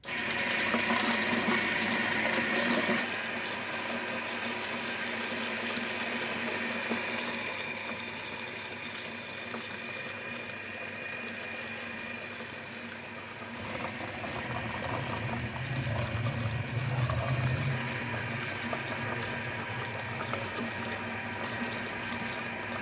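Electric meat grinder running as it grinds fresh meat: a steady motor hum that starts suddenly. A deeper low rumble swells about fourteen seconds in and eases off again a few seconds later.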